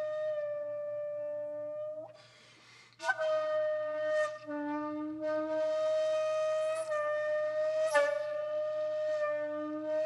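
Background music: a flute-like wind instrument holding long, steady notes over a lower sustained note, with a short break about two seconds in before the melody resumes.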